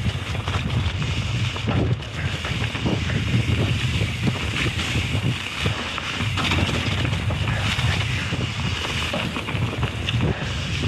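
Mountain bike descending a muddy trail, heard from the rider's camera: wind buffeting the microphone over steady tyre noise, with the bike rattling and knocking over rough ground.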